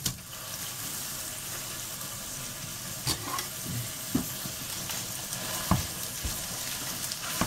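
Minced meat sizzling as it fries in a pot, a steady hiss, with a few knocks of a spoon against the pot as it is stirred and broken up.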